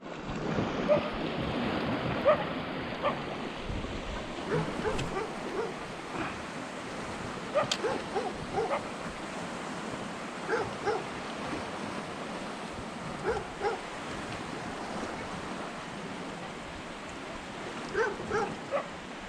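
Short, high yelping animal calls in scattered clusters of two to four, over a steady wash of surf noise.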